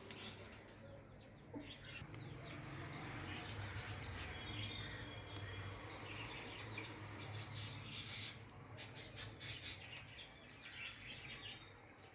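Birds chirping faintly over a low steady hum, with light rustling and snapping as leaves are picked off a plant.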